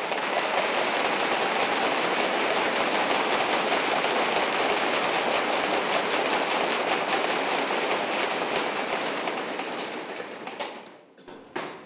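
Audience applauding. It starts at once, holds steady, and dies away about ten seconds in.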